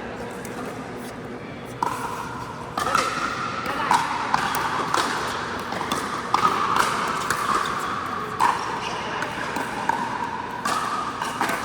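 Pickleball rally on an indoor court: sharp pops of paddles striking the plastic ball and the ball bouncing, roughly one a second from about two seconds in, over background noise from the hall.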